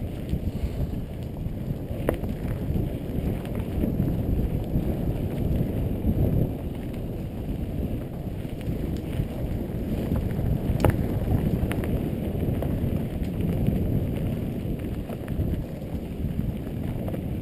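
Specialized Demo 8.1 downhill mountain bike rolling fast over a dirt trail: a steady low rumble of tyres and bike, with wind buffeting the microphone. A few sharp knocks come through, one about two seconds in and another near eleven seconds.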